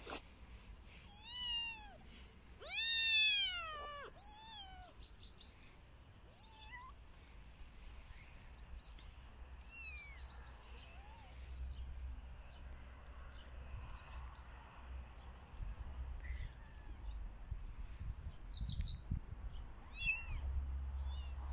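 Kitten meowing: several drawn-out meows in the first few seconds, the loudest about three seconds in, then fainter, shorter mews further apart.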